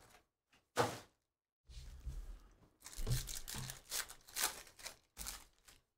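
Foil wrapper of a Panini Phoenix football card pack being torn open by hand, in a series of short rips and crinkles.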